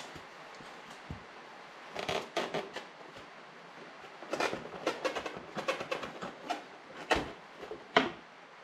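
Clicks, rattles and knocks of a wrench and a plastic motorcycle side panel being handled as the side cover comes off, in scattered clusters, with two sharper knocks near the end.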